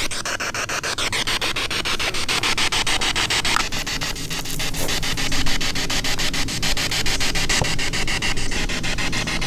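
Ghost-hunting spirit box sweeping through radio channels: loud radio static chopped into rapid, evenly spaced fragments, played through a small external speaker.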